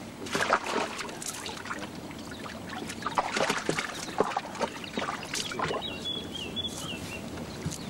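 Wet fishing net hauled by hand over the side of a wooden rowboat: water pours and trickles off the mesh, with irregular knocks and rustles as the net drags over the gunwale.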